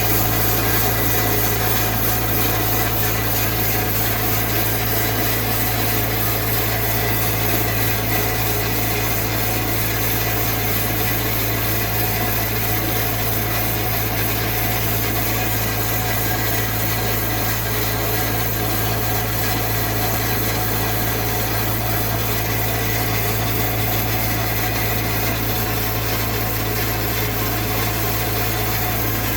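TimberKing 6000 sawmill running steadily on its diesel engine at raised throttle, with the band-saw blade engaged and turning: a constant low engine drone under the whir of the blade.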